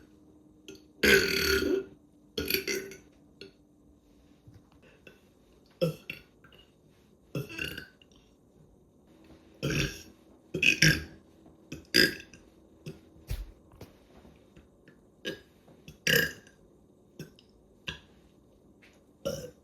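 A person burping over and over after drinking water: about a dozen short burps at uneven intervals, the longest and loudest about a second in.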